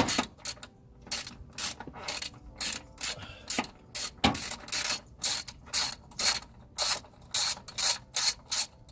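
Ratchet wrench with a 10 mm socket clicking in quick back-and-forth strokes, about two a second, as it backs out the plastic fasteners holding a wheel-well liner.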